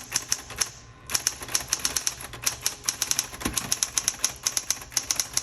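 Smith Corona Coronet Automatic 12 electric typewriter being typed on in quick runs, the typebars striking the platen in fast clicks with a short pause about a second in and one duller knock midway.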